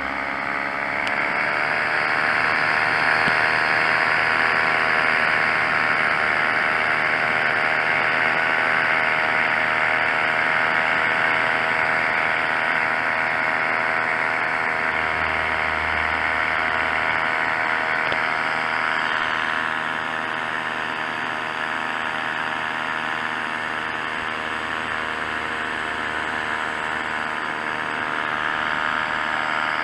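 Tandem paramotor's engine and propeller running steadily in flight. The engine speed rises over the first couple of seconds, then holds, easing slightly about two-thirds of the way through.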